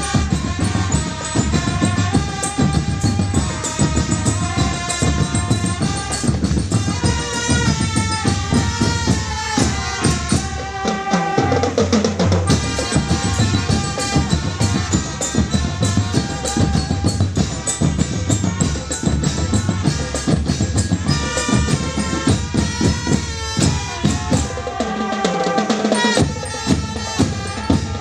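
Marching drum band playing: trumpets and other brass carry a melody over a steady beat of bass drums and snare drums.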